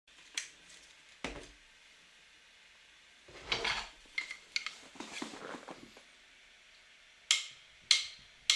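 Scattered light clinks and knocks of hard objects: a few single taps, and a short run of clattering about three and a half to six seconds in.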